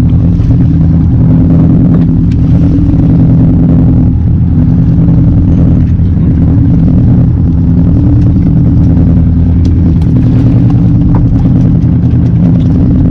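Boat engine running at a steady low hum, loud and constant, with a few faint ticks over it.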